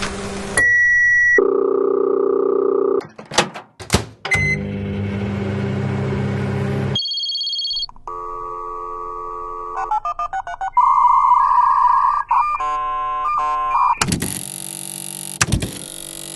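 A rapid series of short electronic sound effects from old gadgets: a steady beep, chords of electronic tones, sharp clicks, a humming noise, and a run of changing, warbling tones. It ends in a noisy stretch with clicks.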